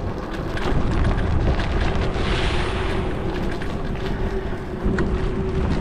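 Wind buffeting the microphone over street and traffic rumble while riding an electric bike through the city, with a faint steady hum underneath and a brief rise of hiss about two seconds in.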